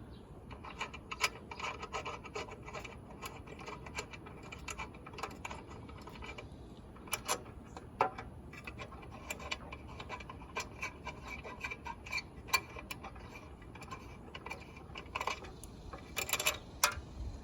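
Irregular small metallic clicks and scrapes as flat nuts are worked off the screws inside a railroad crossing signal light head, with a cluster of sharper clicks near the end.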